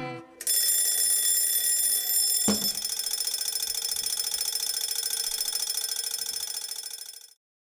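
Twin-bell mechanical alarm clock ringing, high and steady. There is a thump about two and a half seconds in, after which the ringing goes on with a rapid pulsing, weakens, and cuts off suddenly near the end.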